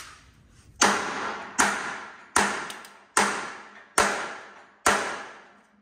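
Hammer striking a bolt on the steel frame rail of a 1971 Chevy C10, six evenly paced blows about a second apart, each ringing out metallically before the next.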